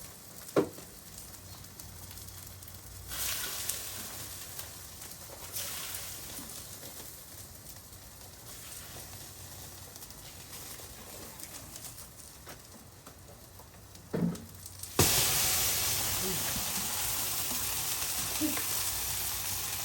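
A lighter-fluid fire in a coffee maker sizzling and crackling, with short hissing surges a few seconds in. About fifteen seconds in, a sudden loud, steady hiss starts and keeps going.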